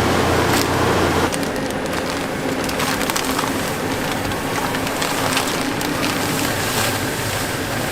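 Kitchen work noise: a steady hum until a cut about a second in, then a noisy bed with a few scattered sharp knocks and clatter.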